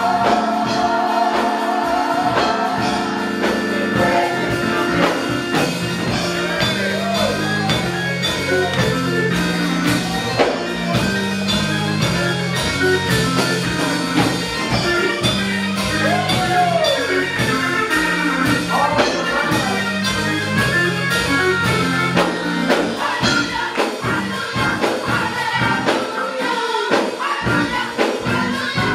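Gospel choir singing live with a band of keyboard and drums, the drums keeping a steady beat under the voices.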